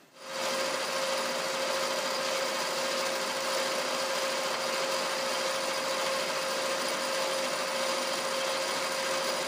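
Metal lathe turning a cast-iron tractor hub at slow speed, its high-speed-steel bit cutting the bore. There is a steady, even cutting noise with a constant tone running through it.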